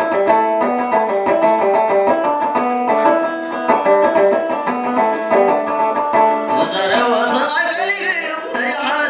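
A plucked string instrument playing a quick, repeating melody. About two-thirds of the way in, a man's voice comes in singing a wavering, ornamented line over it, along with a high hiss.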